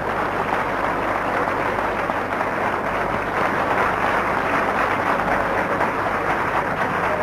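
Audience applauding steadily, heard on an old tape recording with a faint low hum.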